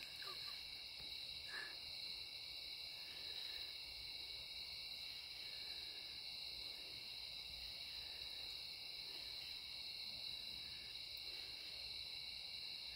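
Steady chorus of night insects: a continuous high-pitched trill made of several layered tones, with faint short chirps repeating every second or two.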